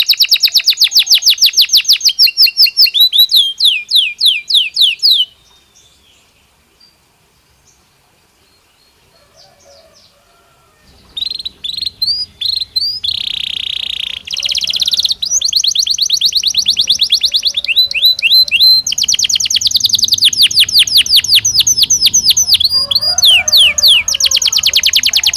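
Belgian canary singing in fast trills of rapidly repeated high notes. It stops about five seconds in, is silent for about six seconds, then starts again with more rolling trills.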